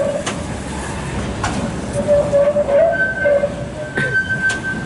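Old PCC tram moving on its rails, its wheels squealing with a wavering tone, joined by a higher steady squeal about three seconds in. Several sharp clicks come from the wheels running over rail joints.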